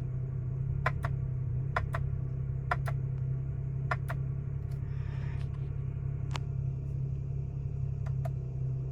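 BMW 335i's turbocharged straight-six idling steadily in gear, heard from inside the cabin, with a dozen or so sharp clicks, several in quick pairs, from the newly retrofitted steering-wheel shift paddles being pulled to test them.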